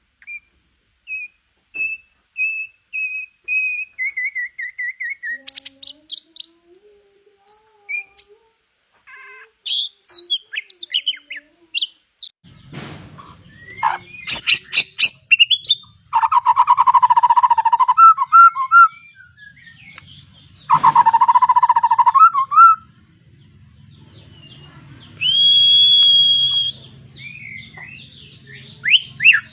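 Songbirds calling and singing: first a quick run of repeated chirps that slide down in pitch, then varied whistled phrases. From about halfway in come louder, harsher calls over a low hum, and a long steady whistle near the end.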